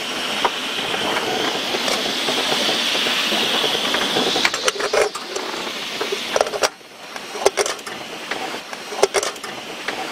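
Gale wind and rushing sea around a small sailing boat: a loud hissing rush that swells, then drops away suddenly about two-thirds of the way through, with scattered knocks and rattles from the boat and its gear.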